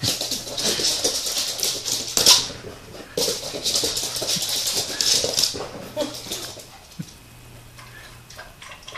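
A small dog's claws clicking and scrabbling on a hardwood floor as it races around, in two quick bursts of skittering, then quieter as it slows down.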